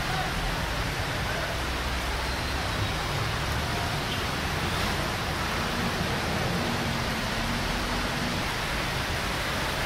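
Steady wash of noise from traffic moving through a flooded street: cars and motorbikes wading through the water, over a low engine rumble.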